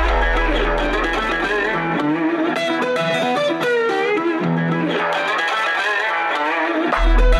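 Background music: a melodic lead line with bending notes over a backing. A deep bass note fades out in the first two seconds, and heavy bass beats come back in near the end.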